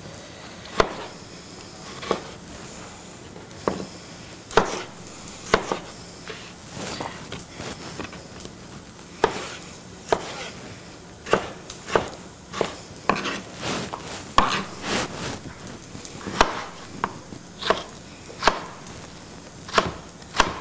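Chef's knife slicing tomatoes on a cutting board: a long run of irregular, sharp knocks as the blade strikes the board, some strokes coming in quick succession.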